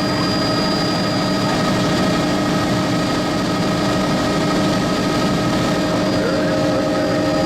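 Helicopter in flight heard from inside the cabin: a steady engine and rotor drone with a constant high whine.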